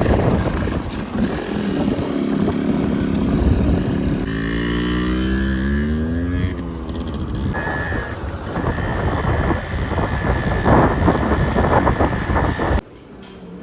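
Motorbike engine running on the move, its pitch rising as it speeds up about four seconds in. The sound cuts off suddenly near the end.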